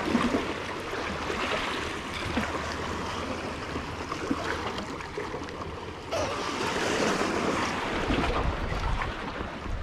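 Sea waves washing against the shore, with wind buffeting the microphone; the water grows louder about six seconds in.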